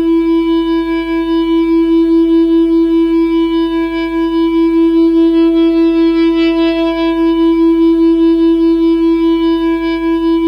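Music: a single sustained note held as a drone, steady in pitch and pulsing in volume about four times a second.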